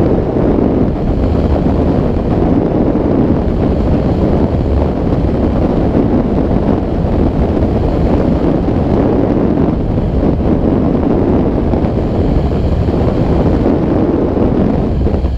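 Steady, loud wind buffeting the microphone of a camera mounted on a hang glider's wing in flight, a heavy low rumble of airflow.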